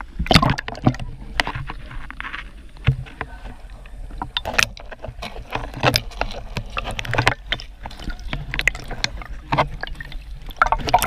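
Water splashing and sloshing in a swimmer's pool, with many short, irregular splashes, as from swimming strokes.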